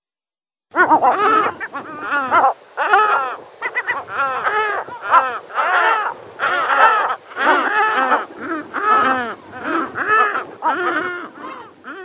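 Pallas's gulls (great black-headed gulls) calling: a continuous chorus of many overlapping harsh, arched calls, starting about a second in.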